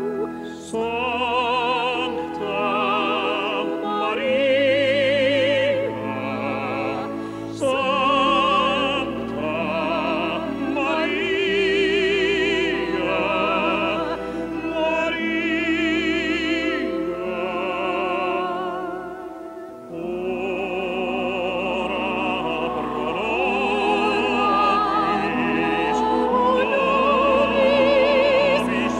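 Operatic singing with wide vibrato over an orchestral accompaniment, the voice holding long notes with a short break between phrases about two-thirds of the way through.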